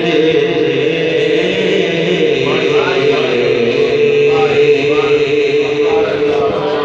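A man chanting a devotional Urdu kalam into a handheld microphone: a loud, steady held drone, with wavering melodic sung phrases coming in about two and a half seconds in.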